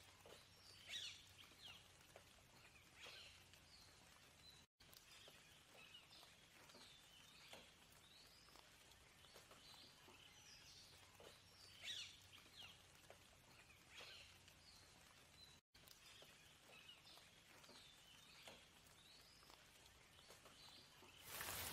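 Faint birds chirping in short, scattered high calls over a quiet background, cutting out completely for an instant twice. Near the end, steady rain comes in suddenly and much louder.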